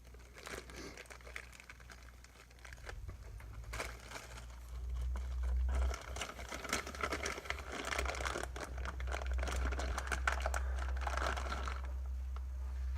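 Hands rummaging through small female crimp terminals for Molex-style connectors: crinkling and light clicks. A steady low hum underneath grows louder about five seconds in.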